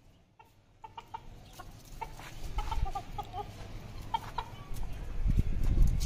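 Chickens clucking in short, repeated calls, with a low rumble building up near the end.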